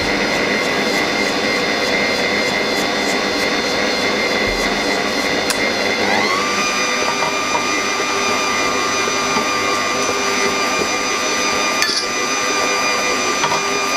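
Electric stand mixer running, its motor whining steadily while the flat beater mixes flour into a stiff cookie dough. About six seconds in, the whine rises to a higher pitch as the mixer speeds up, then holds steady.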